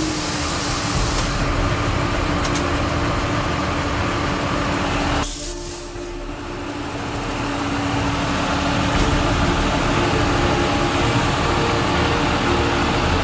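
Dongfeng vacuum street sweeper truck at work: a steady wash of noise from its water spray jets, spinning side brushes and suction system over a steady engine hum. About five seconds in the sound drops away briefly, then builds back up.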